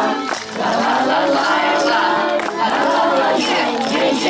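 A group of voices singing together over musical accompaniment, carrying on the closing lines of a song, with a short break about half a second in.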